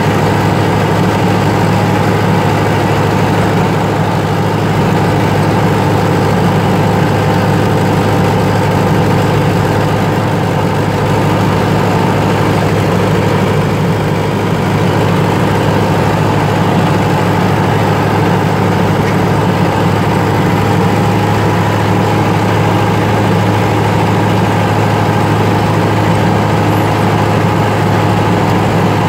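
Fortschritt ZT 303 tractor's four-cylinder diesel engine running steadily as the tractor drives across a field, heard from inside the cab as a loud, even drone with a deep hum.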